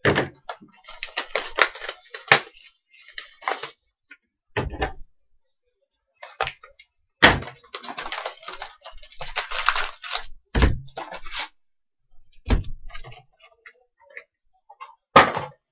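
Shrink wrap and a cardboard hockey card box being cut, torn and opened by hand: stretches of plastic and cardboard crinkling and tearing, broken by about five sharp knocks as the box and packs are handled and set down on the table.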